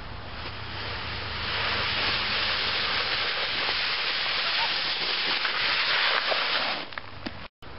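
Boogie board sliding down a hill over crusty snow: a steady scraping hiss that grows louder as the rider comes closer and stops abruptly near the end.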